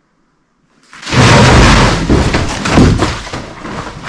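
After about a second of near silence, a sudden very loud burst of banging and thudding noise, dense with rapid knocks, that keeps going.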